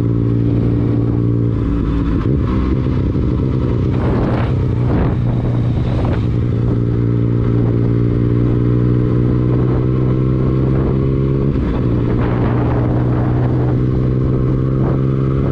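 Motorcycle engine running steadily under way, its pitch shifting slightly a few times.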